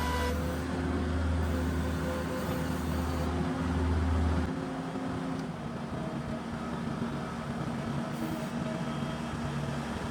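New Holland skid steer's engine running steadily with a deep low hum, which drops away about four and a half seconds in as the engine settles to a quieter run.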